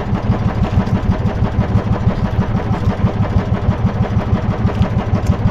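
Small engine running steadily at idle, a low, even, rapid pulse.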